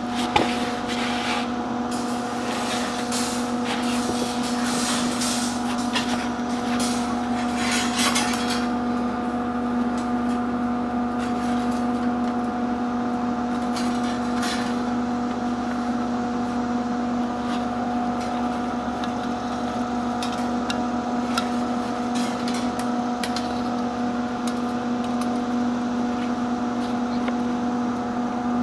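Wire tomato cage being bent and straightened by hand, with scattered metal clinks and scraping, most of them in the first several seconds. A steady electrical hum from shop equipment runs underneath.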